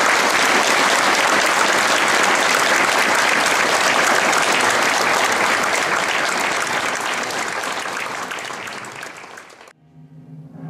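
Large audience applauding steadily, fading over the last few seconds and cutting off suddenly near the end.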